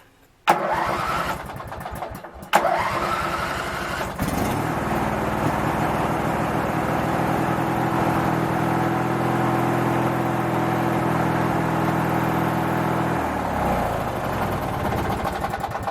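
Craftsman 19.5 twin riding mower being started: the starter cranks twice with a rising whine, then about four seconds in the engine catches and runs steadily, its note changing near the end. It fires only as the key comes off the crank position, which the owner suspects is a faulty ignition switch.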